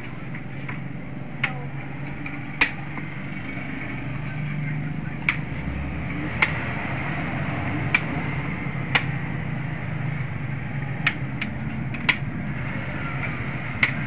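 A steady low hum, like a distant engine, with about a dozen sharp clicks or knocks at irregular intervals of one to two seconds.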